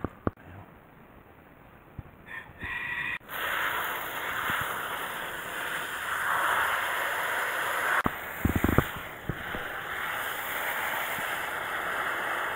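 A garden hose's pistol-grip spray nozzle running, a steady hiss of water spraying into a planting hole, starting about three seconds in after a few light handling clicks. A few low knocks a little past the middle, and the spray carries on to the end.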